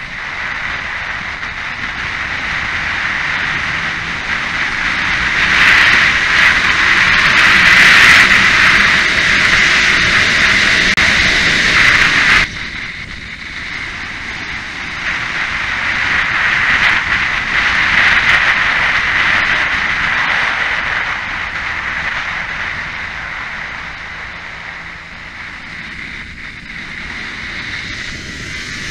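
Onboard sound of a Kawasaki Ninja ridden at speed on a race track: a heavy rush of wind over the camera microphone with the engine running underneath. It swells to its loudest, drops off suddenly about twelve seconds in, then builds again and eases toward the end.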